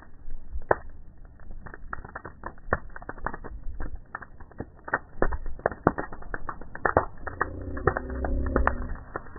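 Wood bonfire crackling, with many irregular sharp snaps and pops from the burning sticks.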